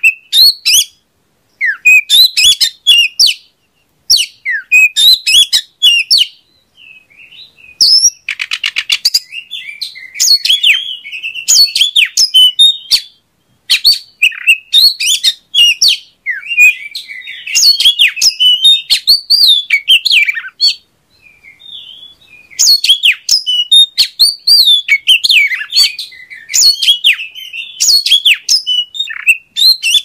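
Oriental magpie-robin (kacer) singing: loud, varied phrases of quick high whistles and sweeping chirps, broken by short pauses, with a fast buzzy rattle about eight seconds in.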